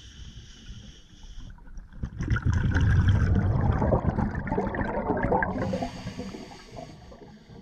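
Scuba diver breathing underwater through a regulator: a steady hiss of inhalation, then exhaled bubbles gurgling out for about three seconds, then a second inhalation hiss near the end.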